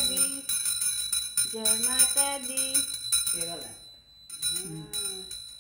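Puja hand bell (ghanti) rung rapidly and continuously during aarti, with a voice over it; the ringing stops a little under four seconds in.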